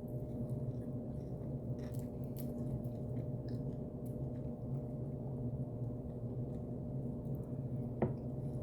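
Chicken wing being chewed: faint scattered wet mouth clicks over a steady low electrical hum, with one sharper click near the end.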